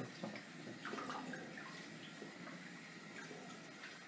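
Faint splashing of water as a face is rinsed with cupped hands over a sink.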